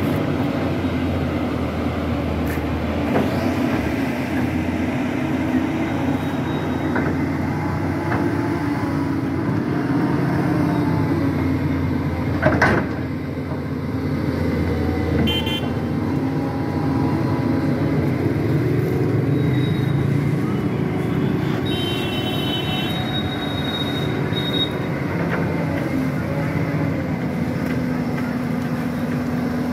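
Doosan DX225LCA hydraulic excavator's diesel engine running steadily as it digs, with a sharp clank about twelve seconds in. Short high-pitched toots sound about fifteen and twenty-two seconds in.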